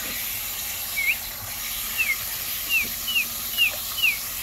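A young hen giving six short, high peeps, the first rising and the rest sliding downward, a lost call for the rest of the flock. A garden hose runs with a steady hiss of water underneath.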